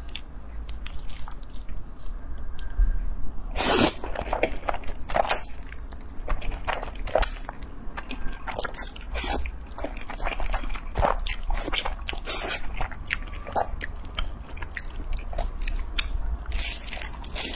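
Close-miked eating sounds: noodles slurped up and chewed, with many short, irregular wet smacks and crunches and a louder slurp about four seconds in.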